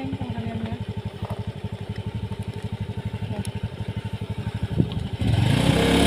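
Motorcycle engine running slowly with an even low pulse of about ten beats a second. About five seconds in, the sound turns louder and rougher.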